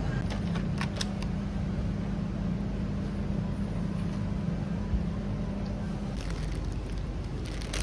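Steady low hum of supermarket ambience from refrigerated display cases, with a few sharp clicks of plastic packaging being handled in the first second. The hum's steady tone drops out about six seconds in.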